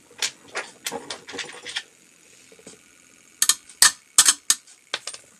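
Handling noise: a run of sharp clicks and knocks from hard objects being moved and set down, with no grinder motor running. The knocks come in two clusters, a handful in the first two seconds and louder ones from about three and a half to five seconds in.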